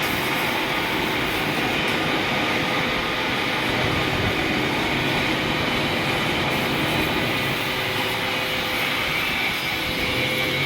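Gas welding torch flame burning with a steady, unbroken hissing rush, with a faint steady hum beneath it.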